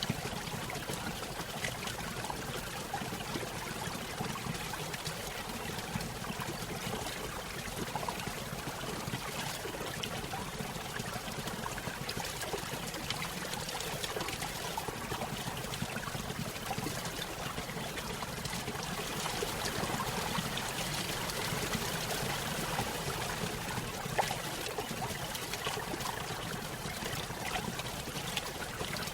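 Small stream running over a little waterfall: a steady trickling and splashing of water, rising slightly for a few seconds past the middle.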